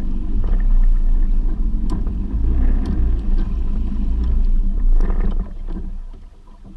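Fishing boat under way: a loud, steady low rumble of the motor and rushing water, with a few sharp splashes. It drops away sharply about five and a half seconds in.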